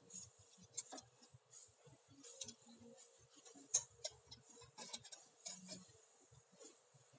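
Faint, scattered metallic clicks and clinks, with a few sharper ticks, as brake pads and their metal anti-squeal shims are handled and fitted into the Kombi's front brake caliper.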